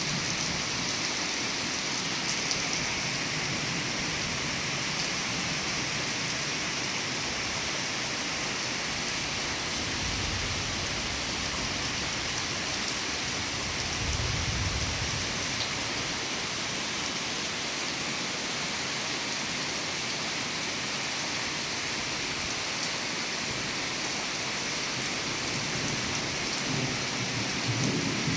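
Steady rain falling and pattering on surfaces, with low rumbles of distant thunder about ten and fourteen seconds in and again near the end.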